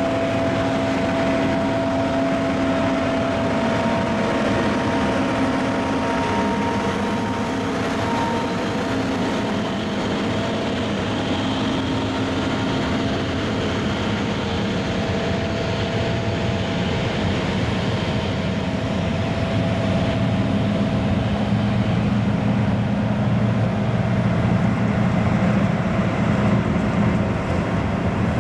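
John Deere combine harvesting corn: a steady drone of engine and threshing machinery, with several high, steady whines over it. It grows somewhat louder in the last third.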